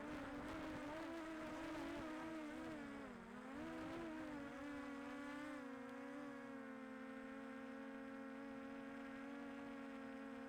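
DJI Air 2S drone's propellers buzzing, a pitched hum that wavers up and down for the first several seconds, dips briefly about three seconds in, then holds a steady pitch.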